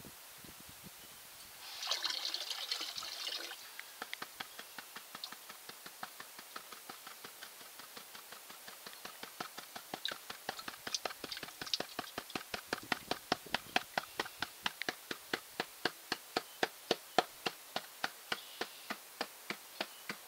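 Water splashing once as a plastic gold pan is dipped in a tub, then slapping and sloshing in the pan in short regular strokes, about three a second, as the pan is shaken to wash the last light material off a black-sand concentrate.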